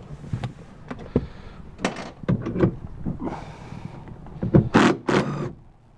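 Clicks, knocks and scraping of metal and plastic parts as a car's seat belt retractor is unbolted and worked loose from the body panel. A few sharp clicks come first, then several louder scraping bursts, the loudest near the end.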